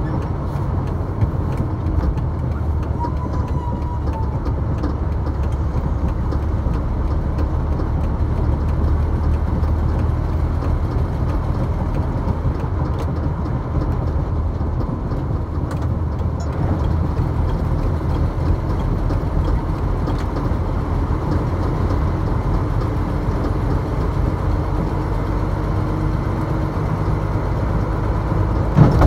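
A moving road vehicle's engine running steadily with tyre and road noise. There is a brief sharp knock near the end.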